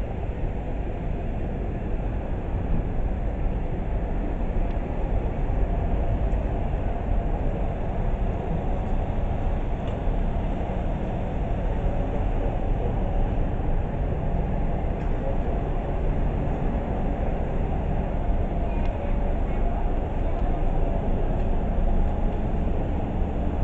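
Steady low rumble of outdoor town ambience, heaviest at the very bottom, with no single clear event standing out.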